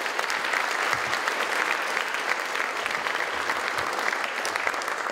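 Audience applauding: a dense, steady patter of many hands clapping at the close of a talk.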